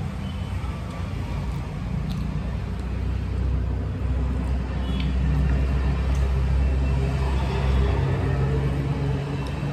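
A low, steady rumble like a motor vehicle's engine, growing somewhat louder through the middle and easing near the end, with a few faint clicks over it.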